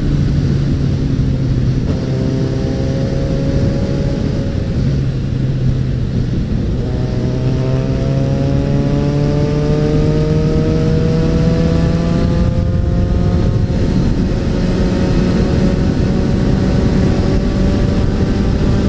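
Suzuki Bandit 650N inline-four engine pulling through the gears on the road. Its pitch rises, drops at a shift, then rises for several seconds. There is a brief break near the middle, after which it runs at a steady, slightly rising pitch, with wind rushing over the bike-mounted microphone.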